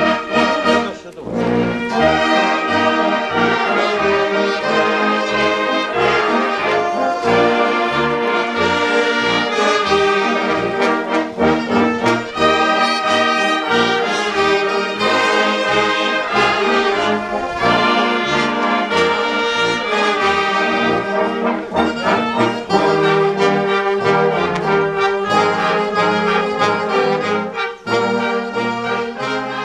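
Small wind band of trumpets and saxophone playing a processional tune, with sustained brass melody over a steady bass beat.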